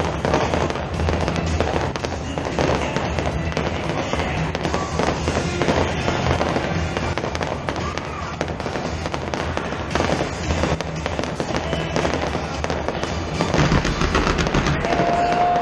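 Fireworks display: a steady run of bangs and crackling from aerial shells bursting, with music playing underneath.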